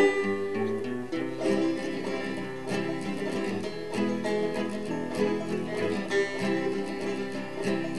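Background music: an acoustic instrumental of plucked string instruments playing a steady, lively tune.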